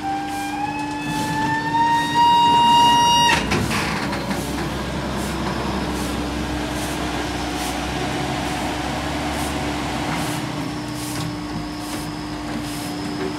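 Heavy waste-collection machinery: a high whine rises slowly in pitch for about three seconds and cuts off with a sharp clunk, followed by a steady low engine rumble.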